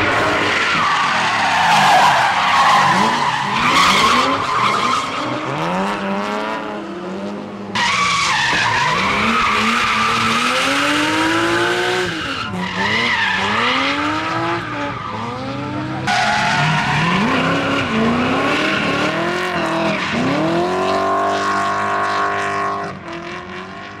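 Drift cars, BMW 3 Series among them, sliding sideways with tyres squealing while their engines rev up and down again and again. The sound breaks off and changes abruptly a few times.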